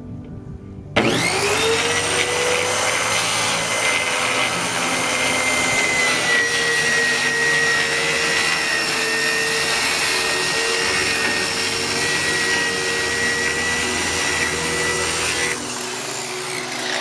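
Electric power saw cutting 1/2-inch marine plywood: the motor whines up to speed about a second in, runs steadily through the cut with a slight dip in pitch under load, then is switched off near the end and its pitch falls as it winds down.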